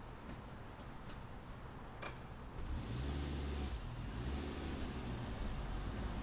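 Car engine and tyre noise heard from inside the cabin while driving slowly, getting louder about three seconds in. A single sharp click about two seconds in.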